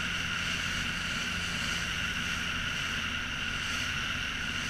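Motorboat under way, its engine running at a steady pace: a constant low drone with a steady high whine over it.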